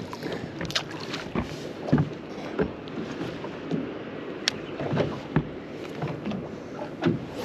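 Small boat drifting on the water, waves lapping and slapping against the hull, with scattered knocks from the boat and fishing gear being handled.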